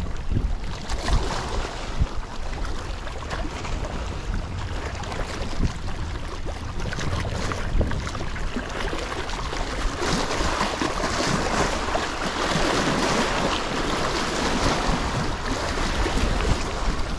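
Wind buffeting the microphone over small waves lapping against shore rocks, the wind noise growing stronger about halfway through.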